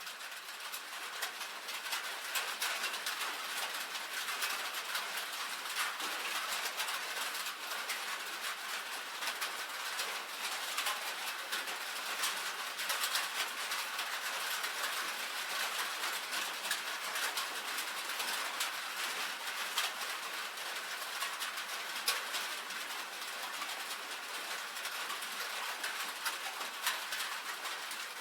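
Rain pattering on a tin roof: a dense, steady patter of countless small drop ticks on the metal, swelling up over the first couple of seconds.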